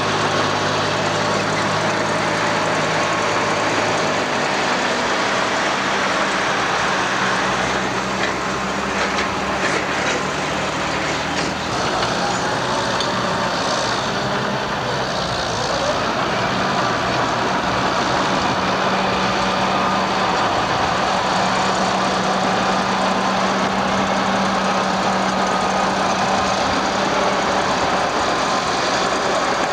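Heavy diesel engines of AEC Mercury dump trucks and a hydraulic excavator running steadily on a construction site. The engine note changes about twelve seconds in.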